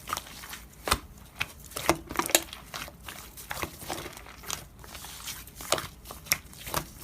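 Slime being squeezed and poked by hand, making irregular sticky clicks, pops and crackles.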